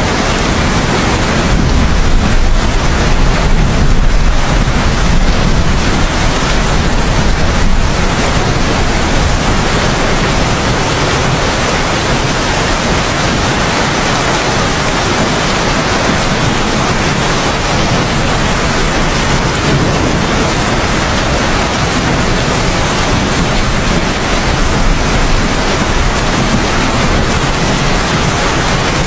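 Heavy, steady rain. A deep rumble of thunder swells underneath during the first several seconds, then eases.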